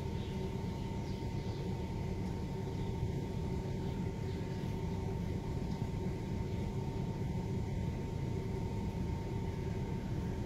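Steady low rumbling background noise with a faint constant hum, unchanging throughout, with no distinct events.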